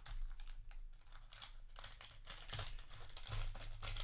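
Foil trading-card booster pack wrapper crinkling and tearing as it is ripped open by hand, in a run of irregular crackles.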